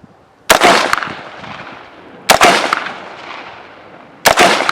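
Helanbak HP15 AR-15 rifle in 5.56/.223 firing three single shots about two seconds apart, each followed by a long rolling echo.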